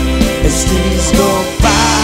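Live rock band playing an instrumental passage: electric guitar over bass, drums and keyboards, with sharp drum hits several times.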